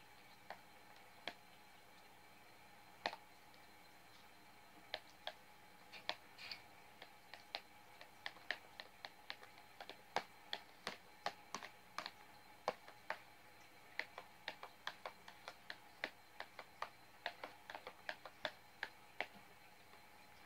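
A fork clicking against a clear plastic bowl while stirring a shaving-cream slime mixture: faint, irregular sharp clicks, a few at first, then about two to three a second from around five seconds in.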